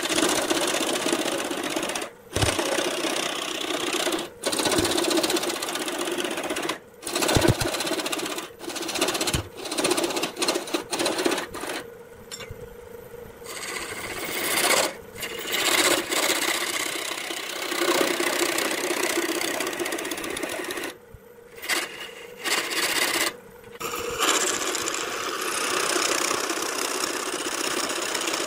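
Wood lathe spinning a wooden blank while a turning tool cuts into it: a continuous shearing hiss of shavings peeling off over the lathe's steady hum. The cutting is broken by many short gaps where the tool lifts off the wood, with two longer quieter spells about halfway through and again about three quarters of the way through.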